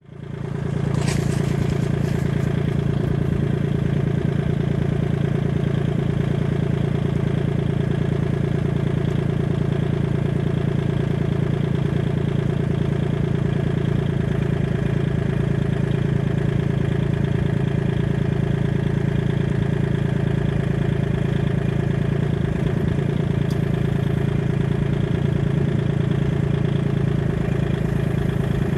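Tractor engine running steadily at an even speed, with one short click about a second in.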